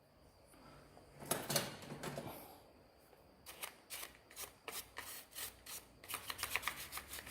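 Faint handling of a power adapter cord and a box cutter: a few scrapes, then a run of light clicks that comes quicker after about six seconds.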